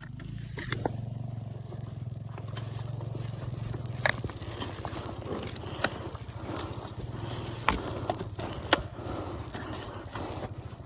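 Motorcycle engine running steadily at low revs while the bike is walked up a slope with the throttle worked by hand. Scattered sharp clicks and knocks sound over it.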